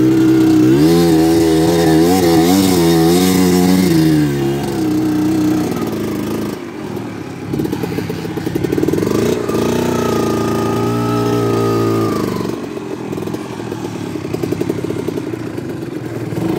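Dirt bike engines revving on a steep climb, their pitch rising and falling with the throttle. About halfway through, one engine revs up and holds high for a few seconds, then drops back to a lower, rougher running sound as a bike pulls up close.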